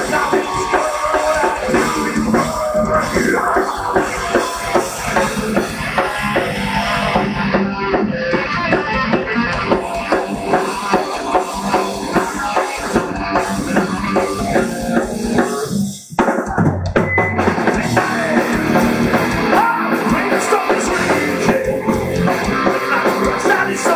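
Live rock band playing loud through the PA: electric guitars over a driving drum kit with steady bass-drum hits, with a brief break about sixteen seconds in before the band comes back in.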